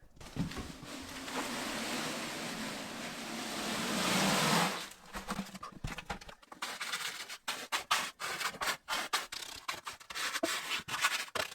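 Concrete mix being stirred and scraped in a bucket: a steady gritty rush that grows louder for about four and a half seconds and stops sharply, then a run of quick irregular scrapes.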